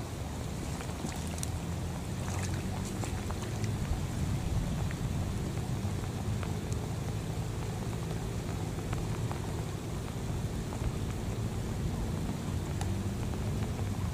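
Steady rain falling on shallow floodwater and grass, a constant patter over a low rumble.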